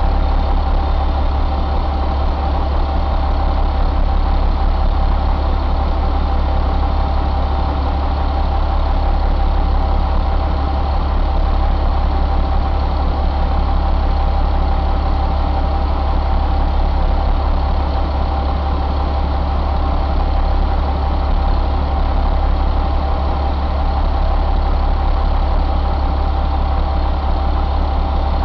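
1999 International DT466E inline-six turbo diesel running at a steady idle, with no change in engine speed.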